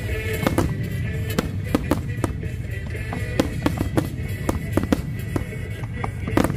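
Fireworks display: a rapid string of sharp bangs and crackles, about two to three a second, over a steady low rumble, with music playing alongside.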